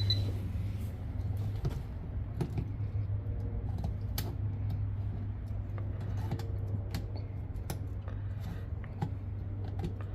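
Scattered light clicks and taps from handling a voltage tester and receptacles, over a steady low hum.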